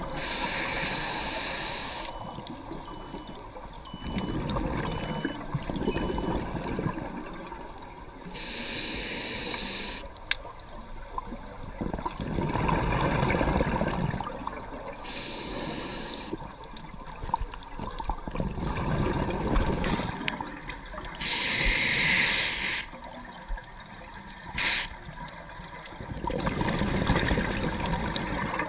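Underwater scuba breathing through a regulator: slow breaths, each a low rushing inhale followed by a loud hissing burst of exhaled bubbles, about four breath cycles.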